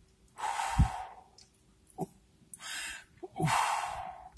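A man blowing out three long, heavy breaths through pursed lips, weary sighs, the first and last the longest, with a brief low grunt in the first.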